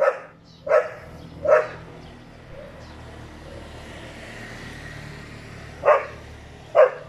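Street dog barking in short, sharp single barks: three in the first two seconds, then two more near the end.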